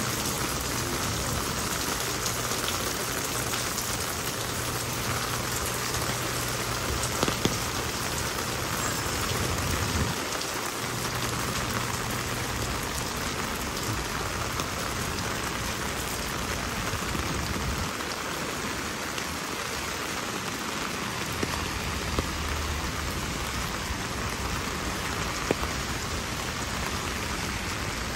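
Heavy rain falling, a steady hiss with a few sharper, louder drop hits scattered through it.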